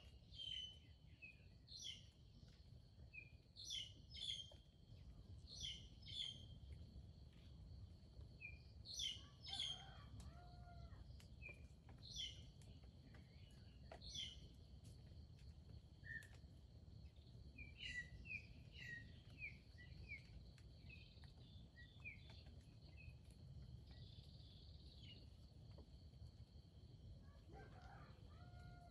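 Faint forest ambience: short, high bird chirps repeating every second or two over a steady high insect drone.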